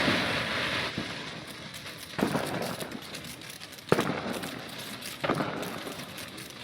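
Consumer fireworks going off: four bangs in a row, roughly a second and a half apart, each trailing away with a hissing fade.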